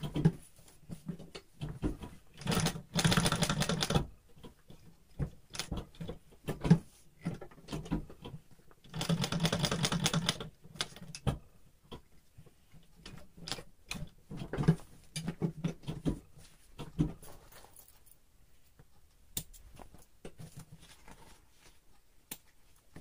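Industrial sewing machine doing double-row topstitching on denim, running in two longer stitching runs, about three and about nine seconds in. Short bursts, clicks and knocks come in between as the work is turned and repositioned.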